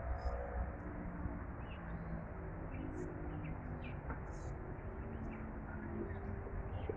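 Birds chirping in short, scattered calls over a steady hum of city traffic.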